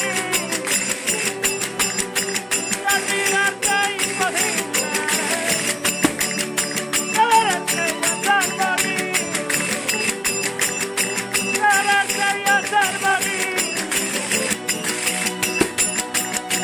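Several Spanish acoustic guitars strummed together with a tambourine keeping a fast, even rhythm, and a man singing over them.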